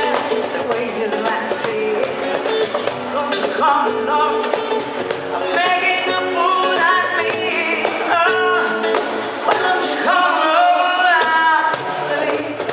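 Live music from a Latin-pop duo: singing over guitar and a steady bass line. The bass drops out for about a second near the end.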